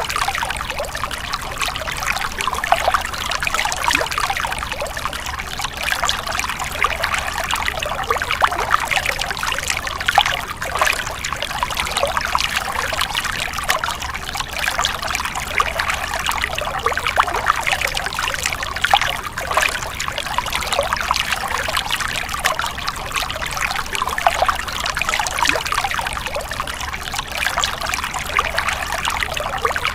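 Small stream of water trickling and splashing steadily over stones, a continuous bubbling spatter with no pauses.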